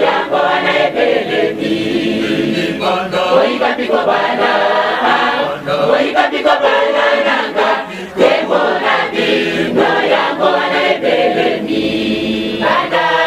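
A choir singing a Lingala gospel song over music, without a break.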